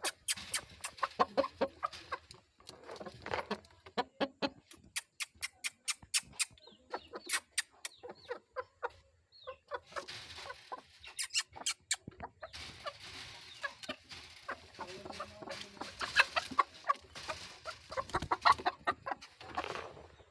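Hens and a rooster clucking in a long run of short, sharp calls, with a couple of brief lulls.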